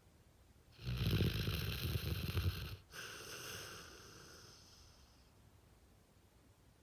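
A sleeping dog snoring very loudly: one rough snore of about two seconds, then a softer breath that fades away.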